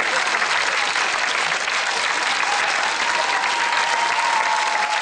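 Studio audience applauding: dense, steady clapping from many people.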